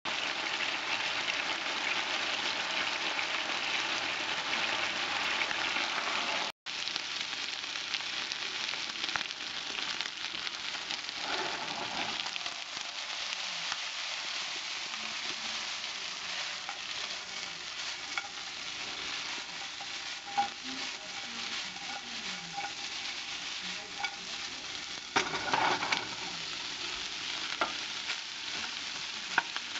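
Chicken thigh pieces and sliced onion sizzling in oil in a nonstick frying pan, a steady hiss that is louder for the first six seconds and cuts out for an instant about six and a half seconds in. A few short clatters of the spatula being stirred through the pan come about 25 seconds in and near the end.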